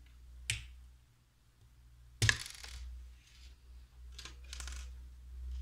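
Loose plastic Lego bricks clicking and clattering as they are handled on a table. There is a sharp click about half a second in, a louder clatter a little after two seconds, then several softer rattles.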